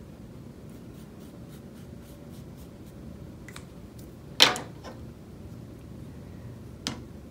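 Faint scratching and rubbing of a pen on fabric stretched in an embroidery hoop, with light ticks. A sharp knock comes about four and a half seconds in, and a smaller one near the end.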